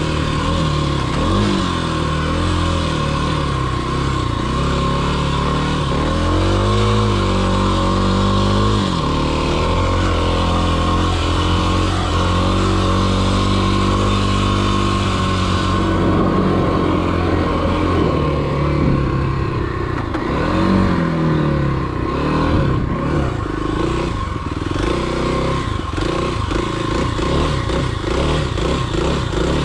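Kawasaki KLX300 single-cylinder four-stroke dirt bike engine running under load, its revs rising and falling again and again with the throttle. In the second half, clattering knocks join it.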